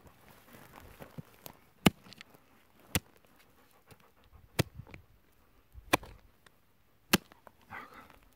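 A hand hoe's blade striking stony soil around a seedling's roots, about five sharp chops spaced roughly a second or so apart.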